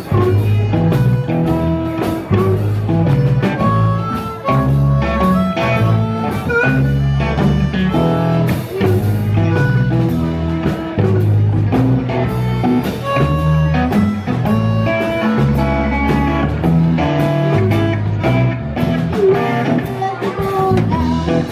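Live blues band playing: electric guitars over a drum kit, with a harmonica blown into a vocal microphone.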